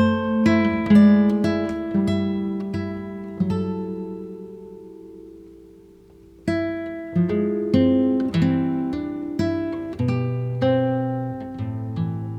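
Background music: acoustic guitar playing plucked and strummed notes that ring out and fade, with a short lull near the middle before the playing resumes.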